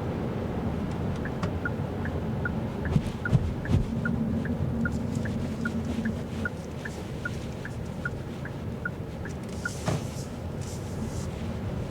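The 2024 Kia Carnival Hybrid's turn-signal indicator ticking inside the cabin, about two and a half ticks a second, alternating tick and tock, over steady road and tyre rumble. The ticking stops near the end. A few dull thumps come about three seconds in.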